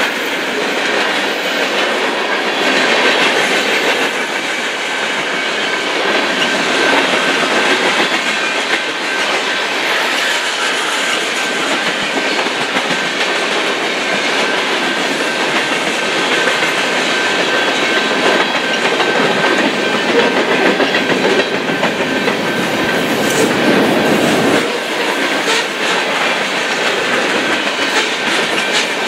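Freight cars of a long mixed train rolling past close by: steel wheels clattering over rail joints over a steady rumble, with a thin steady squeal running through it. The low rumble swells about three-quarters of the way through and drops off suddenly.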